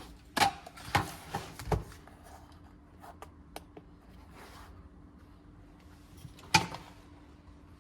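Knocks and clatter as a patch panel is handled and set on a weighing scale: a quick run of knocks in the first two seconds and one sharp knock near the end.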